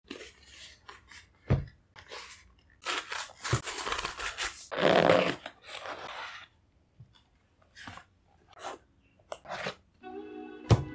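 Cardboard shipping box being torn open along its tear strip and pulled apart by hand, crackling and tearing loudest in the middle, with a few short knocks of the box against the table, the sharpest near the end.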